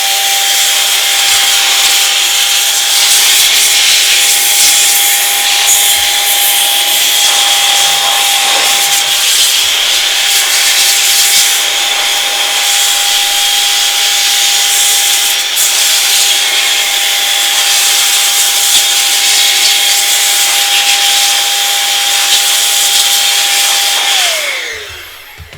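A handheld electric air blower is blowing dust out of an opened floppy disk drive: a loud, steady rush of air with a steady whine. About 24 seconds in it is switched off, and the whine falls in pitch as the motor spins down.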